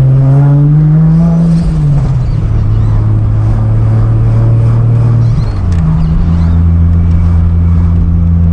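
Holden VL Commodore Turbo's turbocharged 3.0-litre straight-six engine under way: its note rises for about a second and a half, drops at a gear change, then runs steadily, with another change in engine note about five and a half seconds in.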